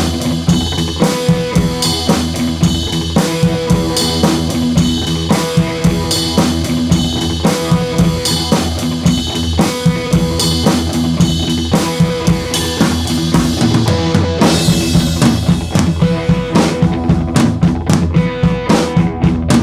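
Background music: an instrumental track with a steady drum-kit beat of bass and snare drum, with a short break about fourteen seconds in before the beat returns.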